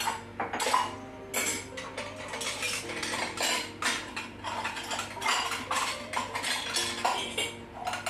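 Spoons, chopsticks, bowls and glasses clinking and clattering as they are gathered into a plastic basket, a quick irregular run of knocks and chinks throughout.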